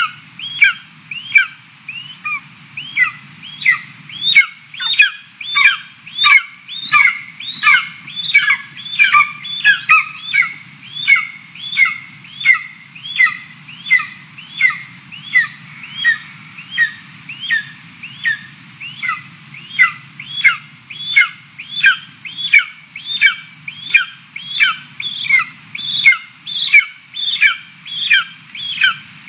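Golden eagle chick, about six weeks old, begging: short, high, downward-slurred call notes repeated without pause at about two a second.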